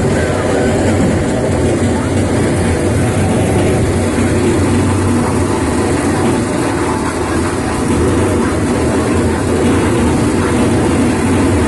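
Maize thresher running: a loud, steady mechanical noise that holds the same level throughout.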